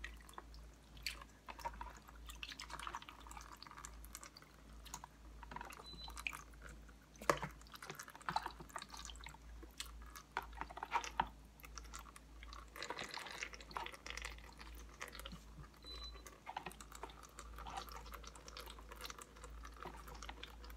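Wet pieces of raw duck meat being handled and dropped into a stainless steel mesh strainer to drain off warm rinse water: faint, irregular wet handling noises and dripping water, with a few sharper knocks.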